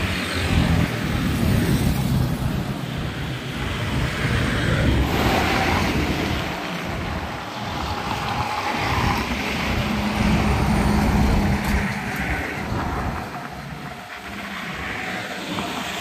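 Road traffic passing close by: cars and heavy trucks driving past one after another, engine rumble and tyre noise swelling and fading with each vehicle.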